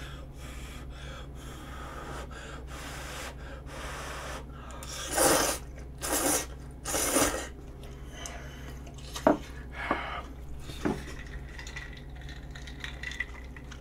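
Udon noodles being slurped from a bowl: three loud sucking pulls about five to seven seconds in, among fainter slurps, followed by a few short clicks.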